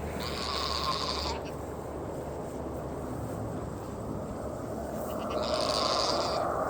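Goats bleating: two hoarse calls, each about a second long, one just after the start and one near the end, over a steady background noise.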